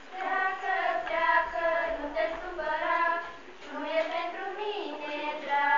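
A group of children singing a song together in unison, in long held notes.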